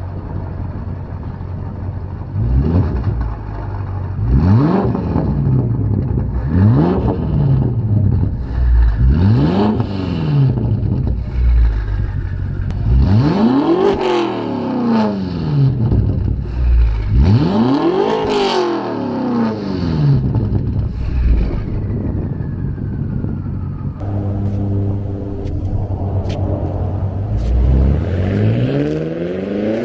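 BMW X6M's twin-turbo V8, straight-piped with an X-pipe and no mufflers or resonators, being free-revved from idle: a run of quick blips, then two longer revs that climb and fall back, dropping to idle in between, and another rev near the end.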